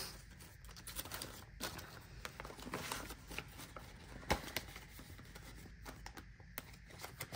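Paper banknotes and a paper savings-challenge card being handled and slid together: soft rustling with scattered light clicks, one sharper click a little past four seconds in.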